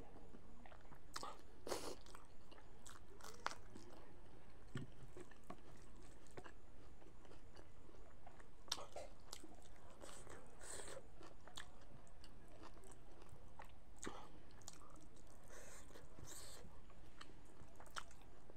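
Close-up chewing and lip smacking of someone eating a mouthful of rice and meat by hand, with irregular wet clicks scattered through.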